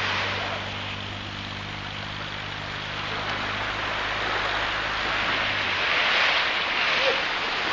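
Small waves washing onto a sandy beach, swelling about six seconds in, over a steady low engine hum that fades out shortly before.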